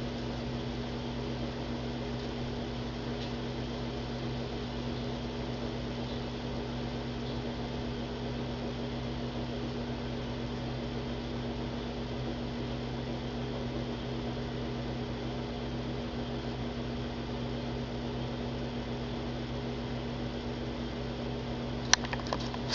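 Steady electrical hum with a low, even drone and background hiss, like a fan or appliance running; a sharp click near the end.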